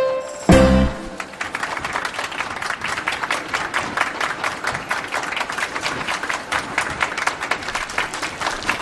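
Applause: many quick claps, starting just after a short loud hit about half a second in.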